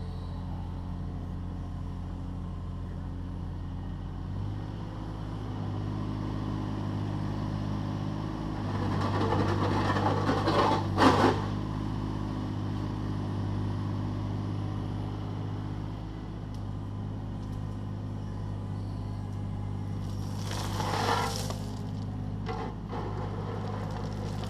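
Takeuchi TB216 mini excavator's diesel engine running steadily, rising in pitch about four seconds in as it takes load. Twice the bucket scrapes and crunches through stone, loudest about eleven seconds in and again briefly near the end.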